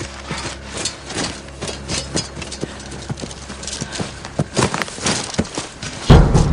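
Running footsteps thudding on grassy ground, about three strides a second, over a low steady hum. A loud low thud comes near the end.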